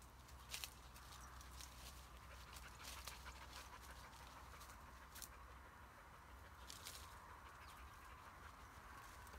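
A Kars shepherd dog pushing through dry brambles and brush: faint rustling with a handful of sharp twig snaps scattered through it.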